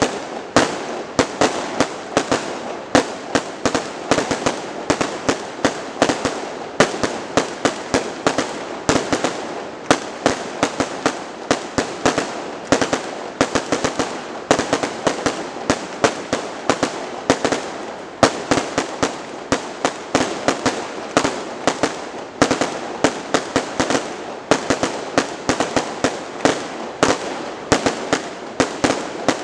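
Fireworks display: a rapid, unbroken run of sharp bangs, several a second, with crackling between them.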